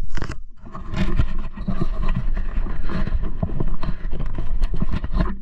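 Close, irregular rustling, crackling and scraping, many small clicks running together, with a short lull about half a second in.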